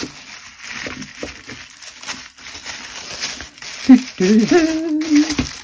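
White tissue paper crinkling and rustling as hands unfold it to unwrap a package. About four seconds in, a person's drawn-out voiced sound takes over as the loudest thing.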